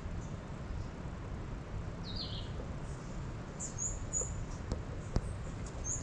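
A few faint bird chirps over steady low background noise: a short falling chirp about two seconds in, then a few quick high chirps around four seconds.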